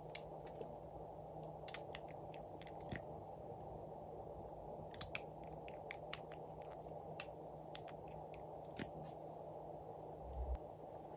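Scattered light plastic clicks and taps as two small lip gloss tubes are handled and their caps gripped and twisted, the loudest click a little before the end, over a steady low hiss.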